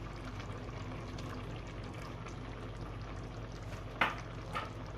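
Pot of basmati rice simmering in beef stock, a steady bubbling, the rice about three-quarters cooked. Two short knocks come about four seconds in, half a second apart.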